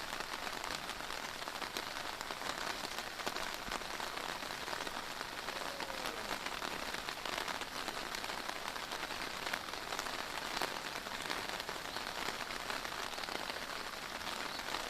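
Heavy pouring rain falling steadily, a dense patter of drops striking surfaces.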